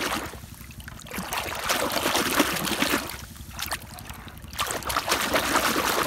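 Muddy pond water sloshing and splashing as a toy car is swished back and forth in it by hand to wash it, coming in repeated surges.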